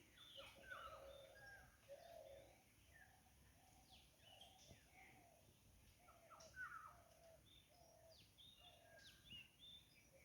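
Faint chorus of several wild birds calling: quick falling whistles and chirps over a steady run of low, short repeated notes.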